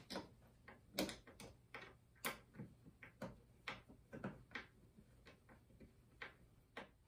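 Faint, irregular clicks and ticks from a screwdriver turning the belt-tensioning screw at the belt's end bracket on an X-Carve CNC machine, tightening the drive belt.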